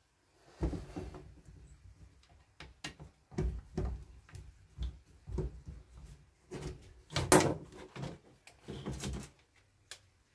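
Irregular clunks and knocks of hands and a metal tool working on a chainsaw's plastic-and-metal body, the loudest about seven seconds in.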